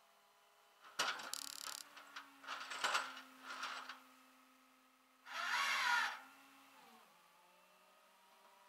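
Rollback tow truck running with a steady hum that drops in pitch about seven seconds in. Over it come several bursts of clanks and rattles as the winch cable and hook are handled on the bed, and a louder rushing noise for about a second around the middle.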